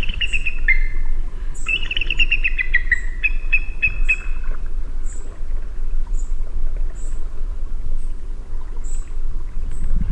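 An eagle calling in high piping notes: two quick falling series in the first three seconds, then a short run of repeated notes. After that only a steady low rumble of the field recording remains, with faint regular high ticks.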